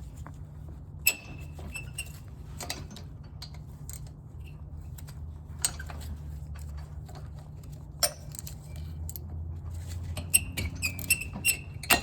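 Socket wrench working a rusted, stubborn snowblower ignition-coil bolt: scattered metal clicks and knocks with short high squeaks, coming thicker near the end. A steady low hum runs underneath.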